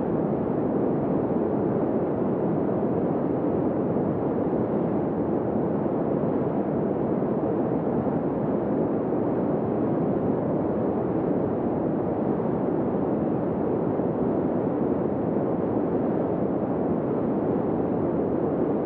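Steady rush of a flowing river, an even wash of water noise with no change in level.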